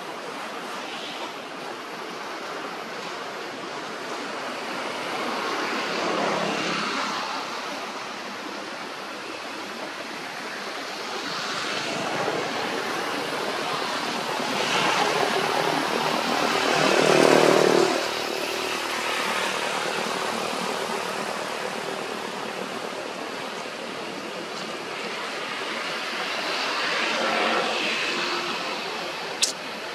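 Engines passing by several times, each swelling and then fading over a steady rushing background noise. The loudest pass, about two-thirds of the way through, breaks off abruptly. A single sharp click comes near the end.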